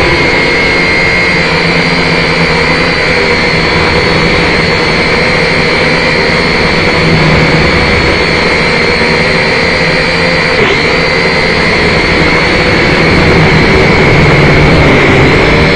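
Small drone's electric motors and propellers whining steadily, close up from the drone's own onboard camera. The pitch dips briefly about ten seconds in as the drone changes its flight.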